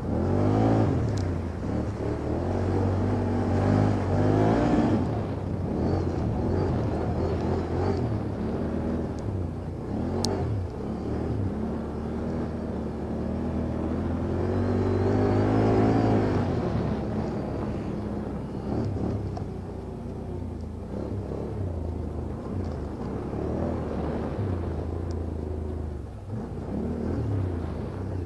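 ATV (quad bike) engine running and being revved on and off, its pitch rising sharply at the start and again about halfway through, then settling lower.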